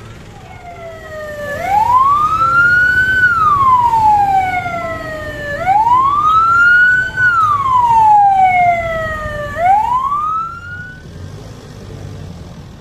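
A vehicle siren wailing: a slow rise in pitch, a brief hold, and a longer fall, repeating about every four seconds. Two full cycles and a third rise, which cuts off shortly before the end.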